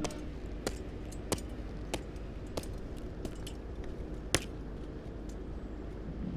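A run of sharp clicks at a steady pace, about three every two seconds, over a low steady hum; one click about four seconds in is louder than the rest.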